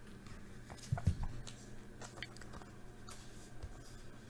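Faint handling noise of trading cards being moved and checked: scattered light clicks and rustles, with a couple of soft thumps about a second in.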